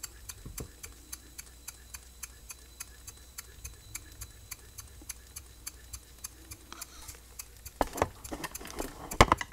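H.E. Boucher S62 two-cylinder marine steam engine running slowly at about a pound and a half of pressure, with a fast, even ticking of several beats a second. A few sharper knocks come near the end.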